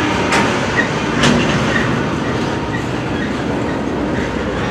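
Double-stack intermodal freight cars rolling past at close range, their wheels running on the rails in a steady, loud rumble. Two sharp clacks come in the first second and a half.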